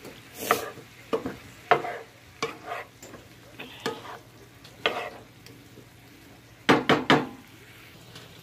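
A wooden spoon stirring and scraping broccoli around a nonstick frying pan over a gas flame, making irregular scrapes and knocks over a faint sizzle. A quick run of louder knocks comes about seven seconds in.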